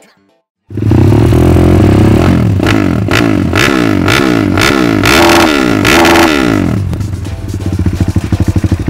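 Single-cylinder Honda Mega Pro motorcycle engine, bored up to 250cc, starting abruptly and being revved in quick repeated throttle blips, its pitch rising and falling about twice a second, then dropping to a lumpy, pulsing idle near the end.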